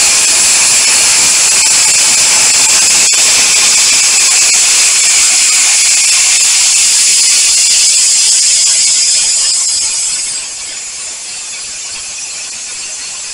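Compressed-air spray gun spraying contact adhesive, a loud steady hiss that turns quieter about ten seconds in.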